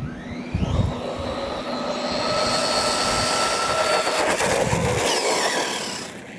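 Losi LMT radio-controlled monster truck's electric motor and drivetrain whining as the truck accelerates on a 3S battery. The pitch rises over the first second or so, holds high and steady with tyre noise, then falls as the truck slows near the end.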